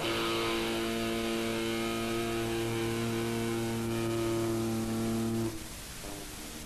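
A chord held on an electric guitar, ringing steadily in a band practice recorded on cassette, then cut off about five and a half seconds in, leaving hiss.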